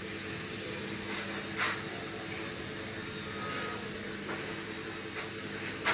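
Steady hum and hiss of room noise, with a few faint taps and scratches of a marker writing on a whiteboard.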